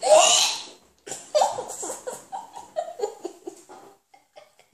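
Children laughing: a loud spluttering burst at the start, then a run of short giggles that fall in pitch and fade away.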